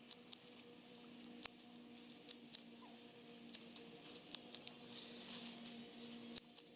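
Hand-held garden secateurs (Samurai brand) snipping through lavender stems: sharp, irregular clicks about two a second. About four to six seconds in, a rustle of foliage as the cut stems are pulled out of the bush by hand.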